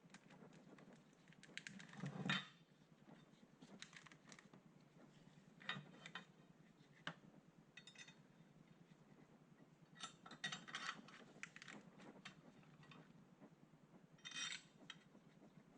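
Hand tools clinking and clicking against metal in scattered bursts, with louder clusters about two seconds in, around ten seconds in and near the end.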